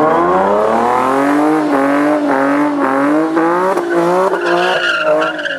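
Race car engines at full throttle, loud, the engine note climbing and dropping back several times in quick succession.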